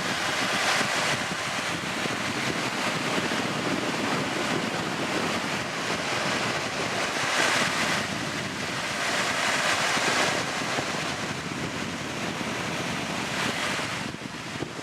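Wind blowing across a camcorder microphone covered by a thin foam windscreen: a steady rushing hiss that swells in gusts a few times.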